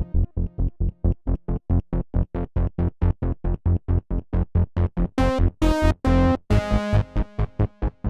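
Dave Smith Instruments Prophet Rev2 analog polyphonic synthesizer playing a fast, even run of short staccato notes, about six a second. A little after five seconds in, the notes turn longer and much brighter as a panel knob is turned.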